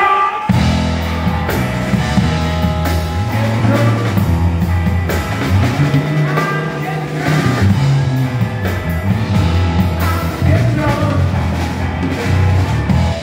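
Live band playing a rock song, with a strong bass line and drums driving it.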